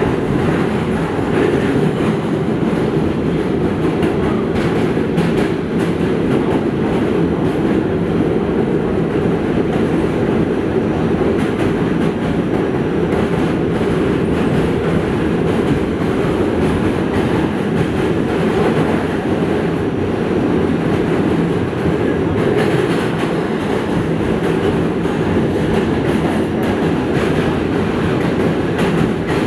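New York City subway Q train running at speed, heard from inside the car: a steady loud rumble of the wheels on the rails, with many small clicks and rattles throughout.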